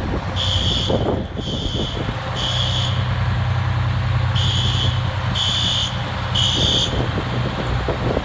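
System Sensor fire alarm horns sounding the temporal-three evacuation pattern: three short, high horn blasts about a second apart, a pause, then three more. Underneath runs the steady low rumble of an idling fire engine.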